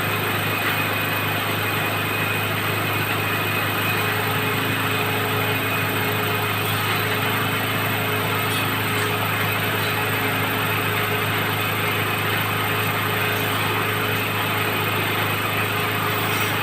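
Well-drilling machine's engine running steadily at a constant speed, an unbroken low hum under dense mechanical noise.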